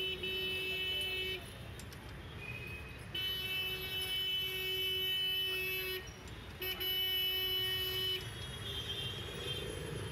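A vehicle horn honking in long, steady blasts at one pitch: one ends about a second and a half in, a three-second blast follows, then a shorter one, over low street traffic rumble.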